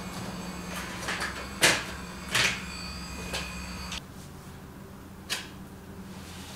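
Knocks and clatter of objects being picked up and moved about on a plywood floor while a space is cleared, the sharpest about a second and a half in, again near two and a half seconds and past five seconds, over a steady low hum.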